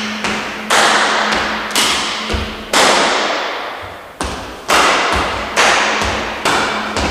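Hand claps, about one a second, each sharp and ringing on in the room's echo, with soft low thuds of footsteps on a wooden floor between them.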